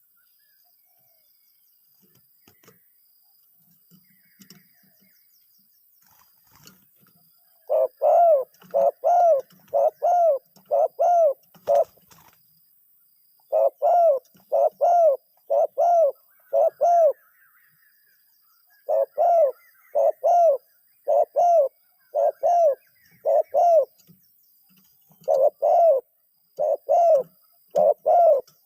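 Decoy dove cooing in four quick bouts of about five coos each, the first starting about eight seconds in.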